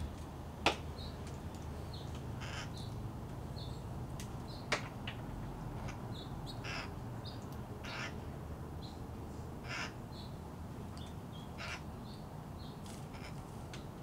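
Red-headed green parakeets giving short harsh calls every second or two, with fainter high chirps from small birds. Two sharp clicks about four seconds apart are the loudest sounds.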